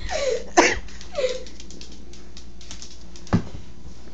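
A rat terrier gives three short falling whines in the first second and a half, the middle one loudest, then a single sharp knock comes about three seconds in, over faint scattered ticks.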